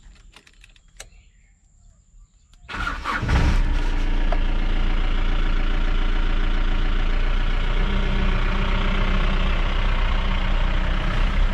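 Faint clicks of the ignition key being turned, then a car engine cranks and catches about three seconds in and runs steadily.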